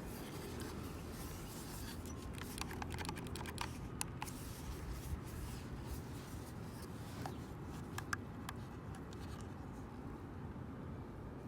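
Handling noises: scattered light clicks and taps, a quick run of them a few seconds in and a few more later, over a steady low rumble.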